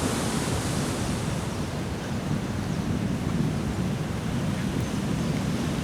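Heavy storm surf crashing and rumbling in a steady roar, mixed with strong wind buffeting the microphone.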